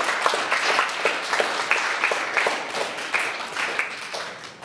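Audience applauding with many hands clapping, fading toward the end.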